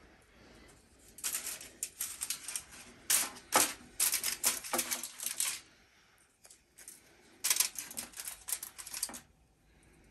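Saltine crackers handled and laid into a foil-lined baking pan: three spells of crisp crinkling and clicking from the crackers, their wrapper and the aluminium foil.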